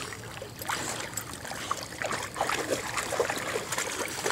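Water splashing and trickling in small, irregular splashes as a dog swims ashore dragging a stick.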